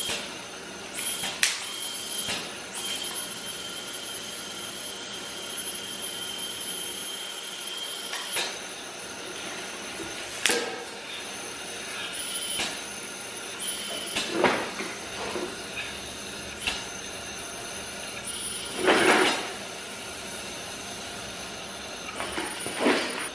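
Electrostatic powder coating gun spraying powder onto motorcycle parts: a steady air hiss with a high whine that switches on and off several times. Sharp snaps sound now and then, which the owner takes for the charge sparking because the parts are poorly grounded, and a louder rush of air comes about two-thirds of the way through.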